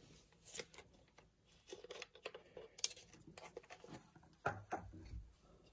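Faint handling noise of a camera body and a lens-mount adapter being turned in the hands: scattered small clicks and rubbing, with two sharper knocks about four and a half seconds in.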